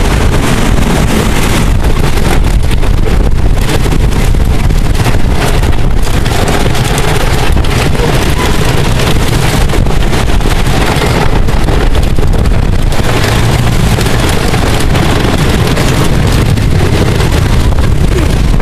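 Wooden roller coaster train running fast along its track, a continuous loud rumble and clatter heard from a seat in the rear car, with heavy wind buffeting the microphone.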